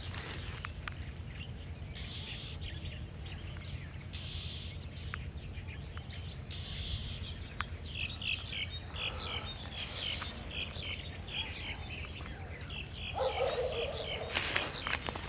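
A small bird chirping, a quick run of short repeated chirps from about halfway through to near the end, over a steady low rumble.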